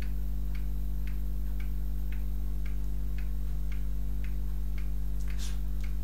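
Regular ticking, about two ticks a second, over a steady low electrical hum.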